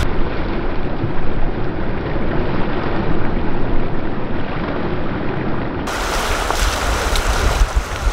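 Wind buffeting the microphone over small waves on a lakeshore, with splashing as a man wades and runs out through shin-deep water. The sound is duller for about the first six seconds, then opens up, with a few sharp ticks near the end.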